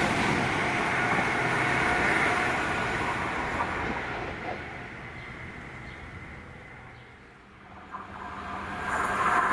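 A train running through the station, its noise falling away over several seconds until it has nearly died out; about nine seconds in a loud vehicle noise rises again.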